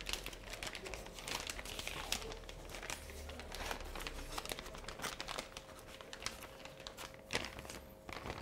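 Clear plastic vacuum-seal bag crinkling and rustling in irregular crackles as it is handled and a steak is put into it. A faint steady hum runs underneath.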